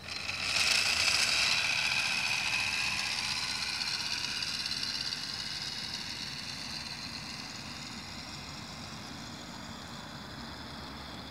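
The motor of a homemade motorized bicycle starting suddenly with a high-pitched whine as the bike pulls away. The sound is loudest about a second in, then fades slowly as the bike rides off.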